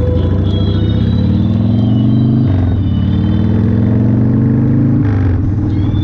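1992 Harley-Davidson Fat Boy's Evolution V-twin accelerating through the gears. Its pitch climbs, falls back sharply about two and a half seconds in as it shifts up, then climbs again to a second upshift about five seconds in.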